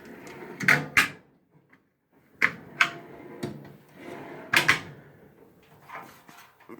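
Steel drawers of a US General 5-drawer tool cart sliding open and shut, with a series of sharp metal clicks and knocks as they hit their stops, in about four clusters with a short quiet gap early on.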